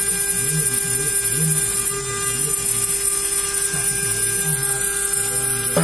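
800-watt CNC router spindle milling aluminium at a slow 200 mm/min feed: a steady high whine with a low wavering hum repeating about twice a second, over the hiss of the sprayed water-and-air coolant mist.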